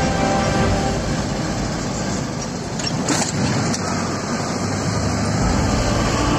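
Engine and road noise of a vehicle driving, heard from inside the cab, with a short hiss about three seconds in.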